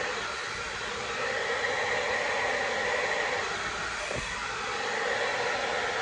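Conair Infinity Pro hair dryer running steadily, blowing air across wet pour paint to push it out into a bloom.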